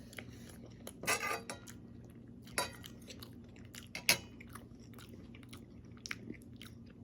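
Eating utensil clinking and scraping against a dish while taco casserole is chewed, with a few short sharp clicks, the loudest about a second in and about four seconds in.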